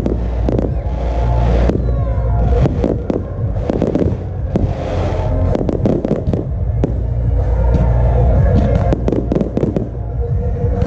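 Aerial fireworks going off in a display: a quick succession of sharp bangs and crackles, thickest in clusters in the second half.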